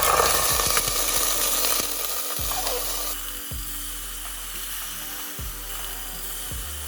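Marinated chicken drumsticks hitting hot vegetable oil in a pan and sizzling: a loud burst as they go in, easing after about three seconds to a steady sizzle of searing.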